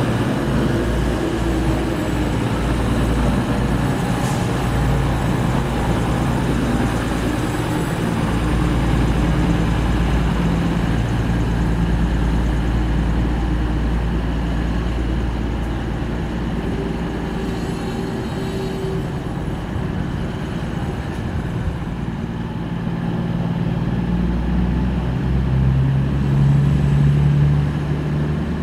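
Diesel train engines running at a station platform, a steady low rumble whose engine note grows louder and clearer in the last few seconds.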